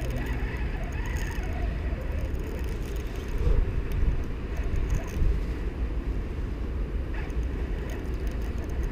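Steady wind rumble buffeting the microphone by the river, with a few faint light clicks.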